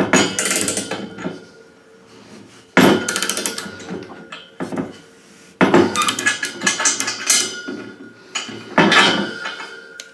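Metal key clicking and knocking against a chrome valve tail as it is screwed into a towel radiator, in four short spells of rapid clicks a few seconds apart.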